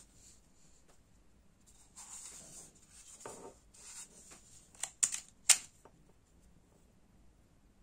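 Quiet handling of a Xiaomi Mi portable electric air compressor: its plastic body and rubber hose rubbing and scraping, with a few sharp clicks about five seconds in as the hose is freed and the unit is switched on. The pump motor is not running yet.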